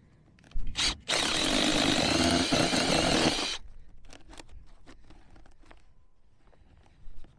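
Cordless drill running for about two and a half seconds as it bores a hole into an RV's rubber roof, then dying away, with a click just before it starts and a few light clicks afterwards.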